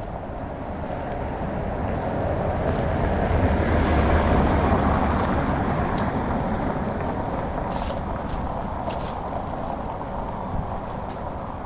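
A road vehicle driving past: engine and tyre noise swells to a peak about four seconds in, then slowly fades away.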